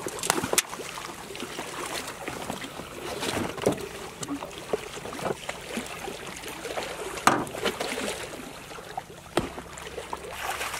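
Plastic duck decoys being tossed from a boat and splashing into shallow flooded water: scattered splashes and knocks, one of them louder a little past the middle.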